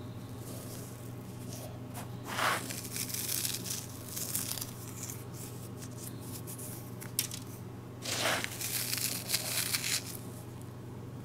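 Fingers raking through granules of hardwood activated charcoal in a plastic tub, making a gritty rustle and crunch in two spells: about two seconds in and again about eight seconds in.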